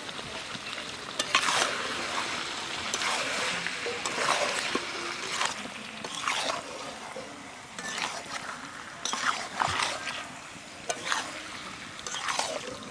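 A wooden spatula stirring and scraping chicken pieces through hot spiced masala in a metal pot, about one scrape a second, over a steady sizzle as the meat fries in the masala.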